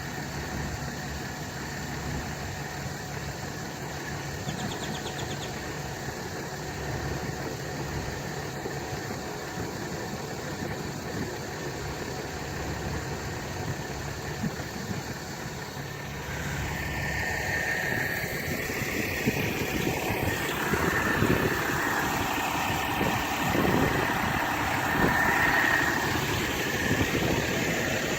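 An engine running steadily at low revs, joined about halfway through by a louder, noisier engine sound with a higher whine.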